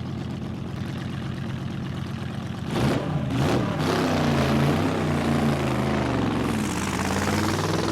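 Drag-racing cars' engines running steadily at the line, then about three seconds in a sudden hard burst of throttle, and the engines rev up loudly with shifting pitch as they pull away.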